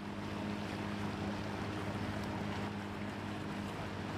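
Small two-stroke outboard motor running at a steady cruising speed, a constant low drone under a rush of wind and water.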